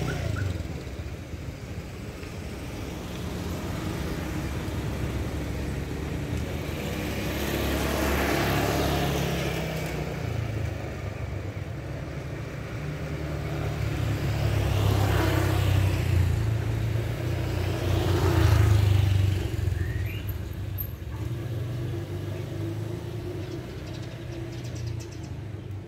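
Road traffic passing: a steady low engine rumble, with three vehicles swelling up and fading away as they go by.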